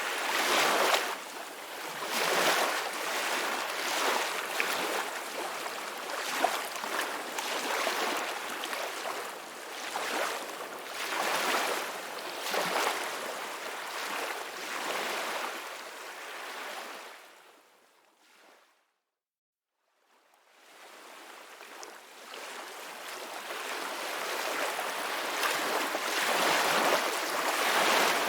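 Ocean waves breaking and washing on a shore, in repeated swells every couple of seconds. About two-thirds of the way through the sound fades out to silence for about two seconds, then fades back in.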